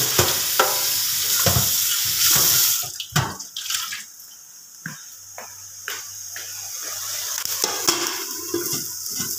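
Tap water running into a stainless steel kitchen sink, shut off about three seconds in, followed by a few light knocks.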